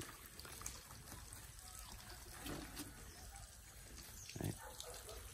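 Water spraying and trickling steadily from a pig nipple drinker that has been left running, with a short faint sound near the end.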